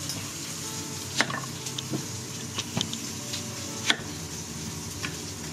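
Flour-dusted chicken frying in a pan of oil, a steady sizzle, with a few sharp knocks of a knife cutting through an onion onto a cutting board; the loudest knock comes about four seconds in.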